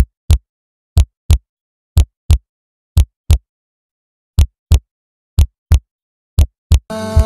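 Heartbeat sound effect: loud double thumps, lub-dub, about once a second against silence, with a slightly longer pause midway. Music comes in just before the end.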